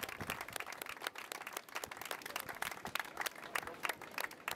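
A small crowd applauding: many separate hand claps at an uneven, busy rate rather than a dense roar.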